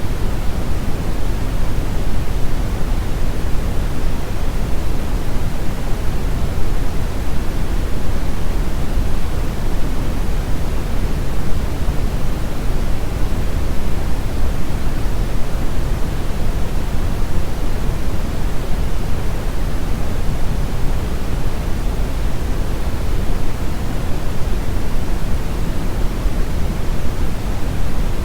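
Steady, unchanging noise sound effect, heaviest in the low end and thinning toward the highs, like pink noise.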